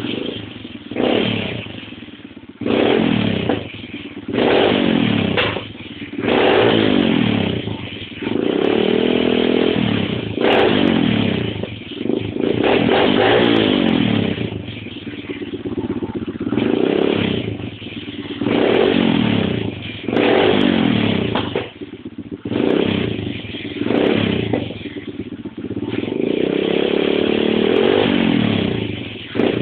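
Pit bike engine heard right at the exhaust muffler, revved again and again with quick throttle blips: over a dozen surges that rise in pitch and fall back toward idle, a few of them held longer. The revving is what makes the muffler shoot flames.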